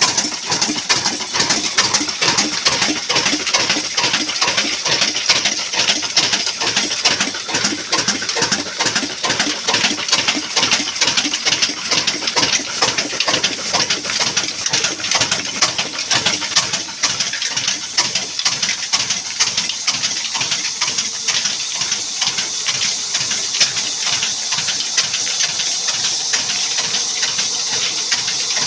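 Old black Ruston Hornsby-type diesel engine running with a fast, even knocking beat under a steady hiss. About two-thirds of the way through, the low knock softens while the hiss carries on.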